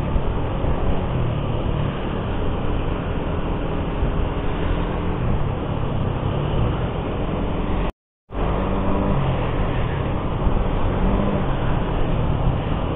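Suzuki GSX-R150's single-cylinder engine running under way as the bike climbs, its pitch shifting a little with the throttle. The sound cuts out for a moment about eight seconds in.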